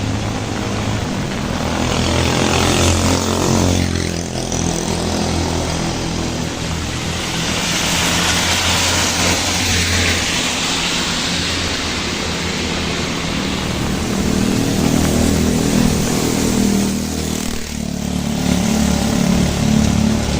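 A motor vehicle engine runs with a steady low hum amid heavy rain hiss. The hiss swells louder around the middle and dips briefly twice.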